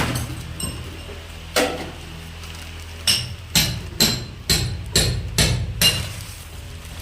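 Hammer blows: a single knock, then a run of seven even strikes at about two a second, over a steady low hum.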